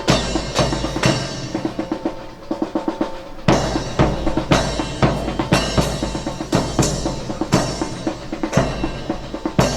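Drum cadence: a bass drum and cymbal hit on a steady beat about twice a second under rapid snare strokes and rolls. It eases off briefly around two seconds in and comes back in strongly about a second and a half later.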